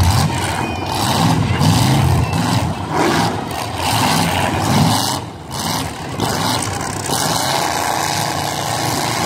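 Demolition derby cars' engines running and revving, their pitch rising and falling again and again over a steady rumble.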